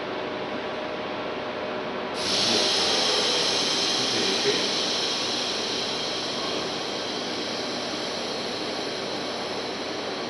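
Steady background machine noise, then about two seconds in a loud hiss starts abruptly and carries on, slowly easing off.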